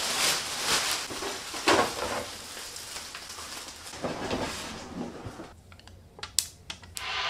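Plastic wrapping and cardboard box rustling as an air fryer oven is lifted out of its packaging. It quiets after about five seconds, leaving a few sharp crackles as protective film is peeled off the control panel.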